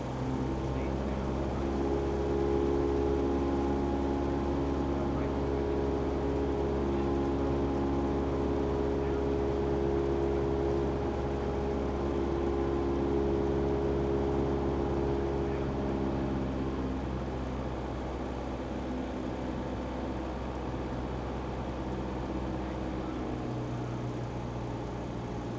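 Single-engine light aircraft's piston engine and propeller droning steadily, heard inside the cockpit during the landing approach. About two-thirds of the way through, its upper tones fade and it gets a little quieter.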